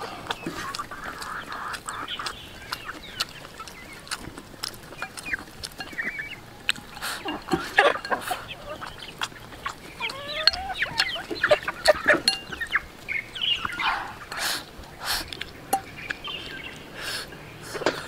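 Chickens clucking in short calls, in clusters, over the clicks of chopsticks on a porcelain rice bowl and chewing.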